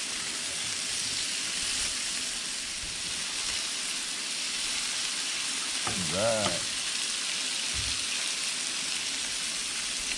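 Walleye fillets frying in butter on a Blackstone flat-top griddle, a steady sizzle throughout. A short wordless vocal sound cuts in about six seconds in.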